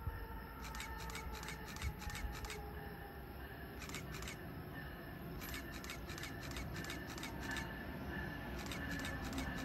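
Amtrak electric train approaching, a low rumble that slowly grows louder, with a faint whine that falls in pitch as it slows, and light irregular clicking throughout.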